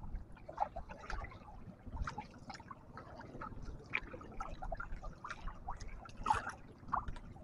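Canoe paddle stroking through shallow water: water trickling and dripping off the blade, with small irregular splashes.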